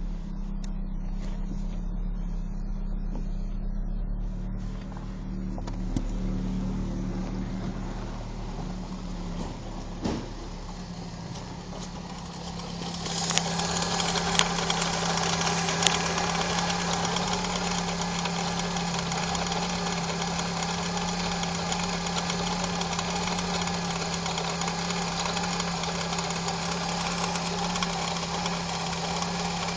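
Opel Calibra's engine idling steadily. About halfway through it becomes louder and brighter, with a few sharp clicks.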